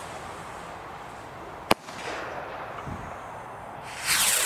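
Pluto firework rockets: a single sharp bang a little under two seconds in as a rocket bursts. Near the end comes a loud, brief rushing whoosh of a rocket lifting off.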